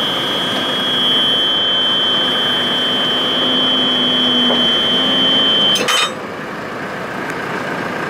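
JCB 3CX 14 backhoe's cab warning buzzer sounding a steady high beep over the running diesel engine, signalling that the backhoe is being worked from the forward seat. The beep cuts off with a click about six seconds in, leaving the engine running.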